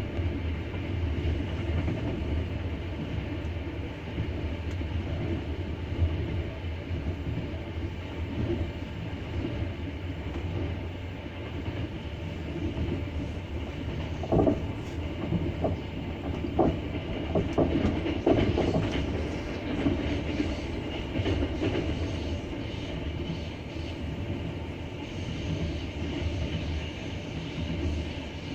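Wheels of a double-decker passenger train behind an EP20 electric locomotive clattering over the rails at speed: a steady rumble, with a run of sharp knocks from about halfway to three-quarters through.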